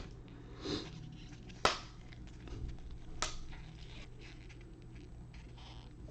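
Trading cards being handled and slid past one another, soft rustling with three sharp clicks about a second and a half apart.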